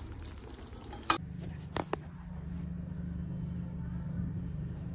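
A metal spatula knocks once against the kadai about a second in. Two short clicks follow, then a steady low hum.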